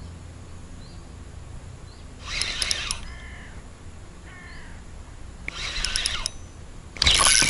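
Spinning reel cranked in two short clicking bursts about three seconds apart, the stop-and-go steps of a jig retrieve. Between them come two faint crow caws. Near the end a sudden much louder noise comes as a bite is struck.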